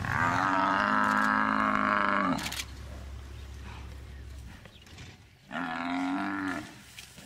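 Cape buffalo bellowing in distress while lions attack it: one long, loud bawl at the start, then a second, shorter bawl near the end.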